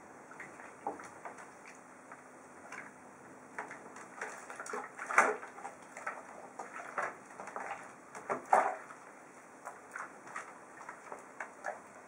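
Hands splashing and sloshing soapy water in a plastic tub while bathing a pigeon: irregular small splashes and knocks, the two loudest about five and eight and a half seconds in.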